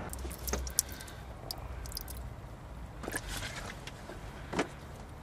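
Scattered light clicks, knocks and scrapes of metal tools and car parts being handled during clutch work, with a sharp click about a second in and a louder knock near the end.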